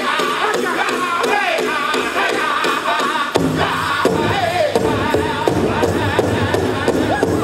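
A powwow drum group singing a chicken dance contest song in high, wavering voices over a steady drumbeat on a big powwow drum; the drum's low end comes in stronger about halfway through.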